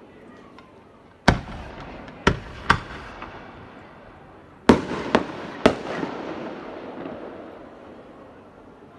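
Aerial fireworks shells bursting: six sharp bangs, three starting about a second in and three more near the middle, each trailing off in a rolling echo.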